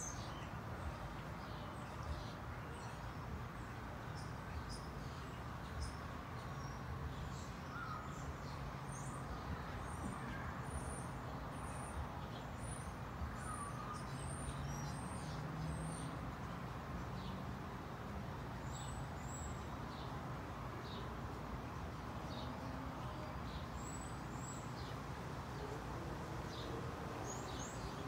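Outdoor ambience of small birds chirping in short, high notes scattered throughout, over a steady low background rumble.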